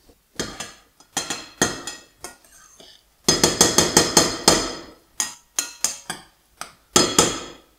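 A metal utensil striking and clattering against a metal cooking pot, in sharp ringing clinks. A few come singly, then a quick run in the middle, then a few more near the end.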